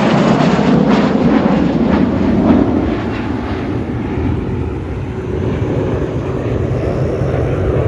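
Jet aircraft flying overhead: a loud, steady roar that eases a little after about three seconds.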